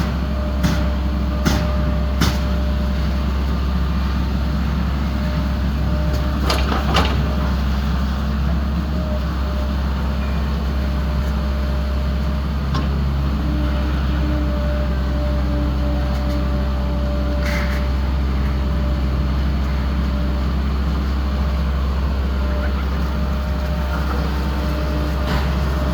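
Steady low motor drone, with a few sharp clicks and knocks in the first seven seconds and another near the middle.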